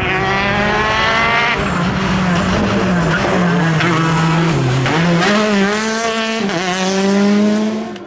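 Rally car engine at high revs, its pitch dropping and climbing several times with gear changes as the car takes a bend, with some tyre noise.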